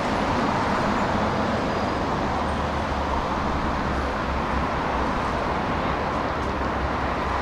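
City street traffic: a steady wash of car and road noise with a constant low rumble.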